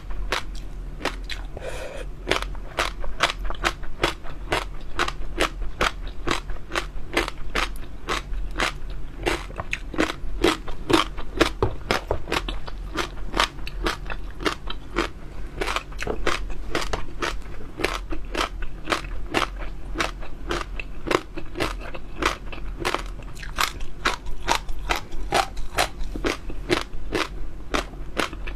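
Close-up chewing of chewy jelly pearls: a continuous run of crisp crunching and popping clicks, about three to four a second.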